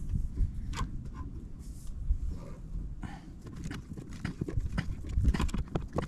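Irregular metal clicks and taps of a pliers wrench gripping and turning a brass gas fitting to tighten it onto black iron pipe, busier in the last two seconds.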